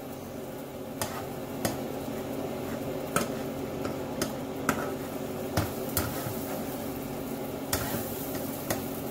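Spatula scraping and tapping in a frying pan as eggs and cheese are scrambled, over a steady sizzle of frying. Sharp scrapes and clicks come irregularly, every half second to a second and a half.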